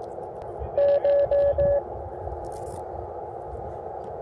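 Icom transceiver's receiver hiss on the 12 m band, with four short beeps of one steady tone in quick succession about a second in, then only the hiss. The beeps come from another station on the frequency, which the operator takes for that station having a radio problem.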